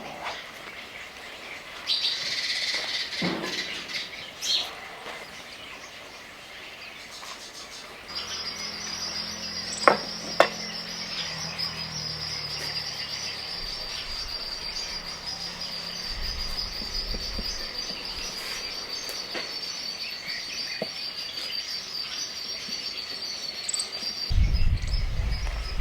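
Outdoor chirping of birds and insects, with a high, steady, finely pulsed trill from about eight seconds in until near the end. Two sharp knocks come around the ten-second mark, and a low rumble comes near the end.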